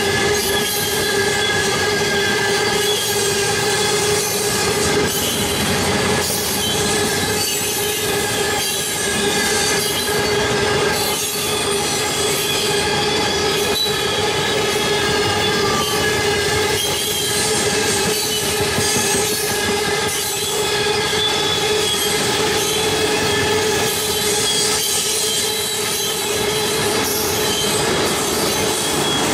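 Freight train tank cars rolling past on a curve, their wheels squealing steadily against the rails over a continuous rumble and occasional clatter of the wheels.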